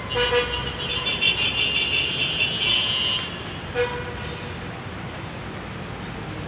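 A horn-like tone held for about three seconds, then a short toot near four seconds in, over a steady low rumble of traffic.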